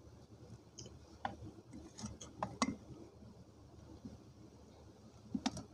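Dry baked multani mitti (fuller's earth clay) crunching as it is chewed, heard close up: a few sharp cracks, a cluster about two seconds in and another pair near the end.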